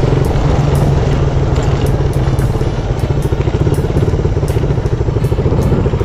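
Motorcycle engine running steadily at low road speed, heard from on board the bike.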